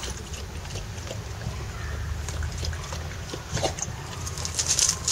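Dog mouthing and gnawing a hard plastic ball on gravel: scattered scrapes and crackles of plastic and stones, getting busier near the end, over a steady low rumble.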